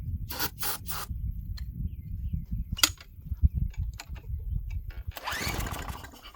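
Pull-starts on the recoil starter of a Craftsman wheeled string trimmer: a few sharp knocks and a rasping rope pull, with the engine turning over but not catching.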